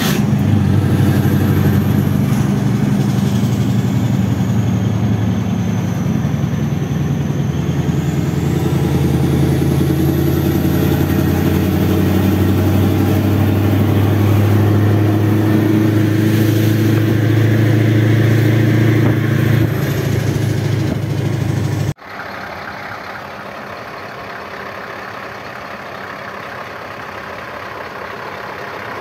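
Scania V8 diesel engine running steadily under way, heard from inside the truck's cab as a loud low drone. About 22 seconds in it cuts sharply to a quieter, even engine sound from outside the parked truck.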